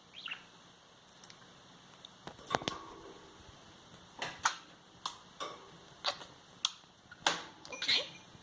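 Budgerigar making a string of short, sharp clicks and brief chirps, about a dozen spread irregularly, with a louder chirp near the end.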